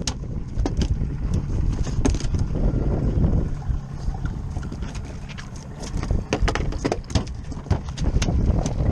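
Steady low rumble of a small boat's engine at sea, with wind, under many sharp knocks and clicks that come thickest in the second half.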